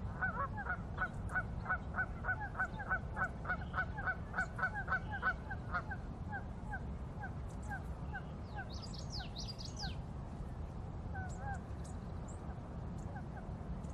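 Bird calling over and over in short pitched notes, a quick run of about three a second for the first six seconds, then slower and scattered. Brief high chirps come in about nine seconds in, over a low steady rumble.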